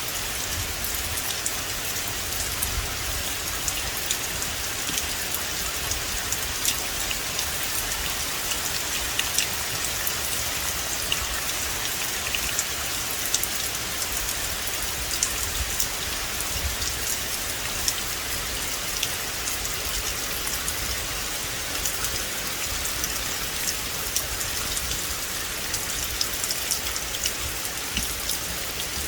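Steady rain falling on a forest, an even hiss dense with the small ticks of individual drops striking.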